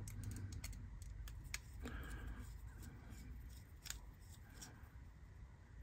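Faint, irregular small metallic clicks and light scraping as a small screwdriver works a screw in the metal motor chassis of a vintage Hornby Dublo locomotive.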